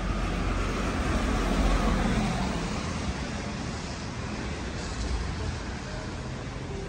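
Street traffic: a vehicle passes close by, loudest about two seconds in, with a low rumble that then eases into a steady city hum.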